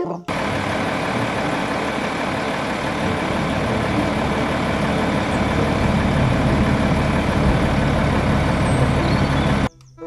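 Large tipper (dump) truck's diesel engine running steadily while its dump body is raised, a continuous heavy rumble that starts suddenly just after the start and cuts off abruptly near the end.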